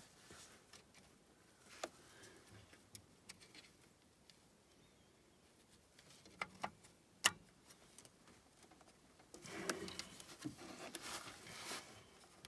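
Faint handling of an alternator's plastic wiring plug and cable as it is worked into its socket: a few separate sharp clicks, then a stretch of rubbing and rustling near the end.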